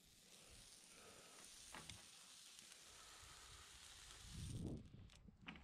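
Hot steel horseshoe sizzling as it burns into the hoof horn during hot-fitting, a steady hiss, with a single click just before two seconds in and a brief low rumble near the end.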